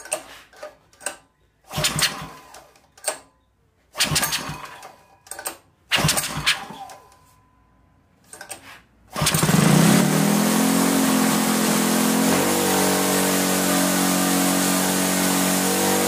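Predator single-cylinder small engine being recoil pull-started: several hard yanks of the starter rope, then it catches about nine seconds in and settles into a steady fast idle, set too high.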